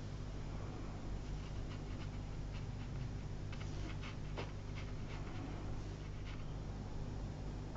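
A fine watercolour brush flicked across paper, making faint, short scratchy strokes every half second or so as reeds are painted in, over a steady low electrical hum.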